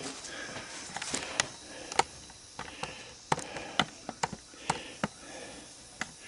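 Irregular sharp clinks and knocks of metal grinder parts and hand tools being handled and set in a bench vise, with some rustling in between.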